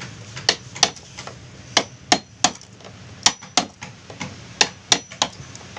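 Steel claw hammer striking a chisel, driving it into hard wood on a wooden boat hull. About a dozen sharp blows come in short runs of two or three, roughly three a second, with brief pauses between runs.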